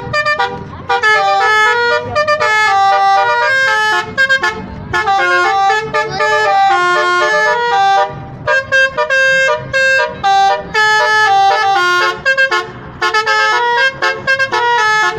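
Basuri telolet musical horn playing a tune: several horn tones sounding together, switching quickly between short and held notes with brief gaps.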